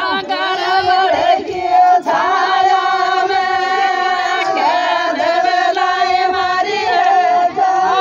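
A group of women singing a Rajasthani Meena folk song (Meenawati geet) together, with long held notes.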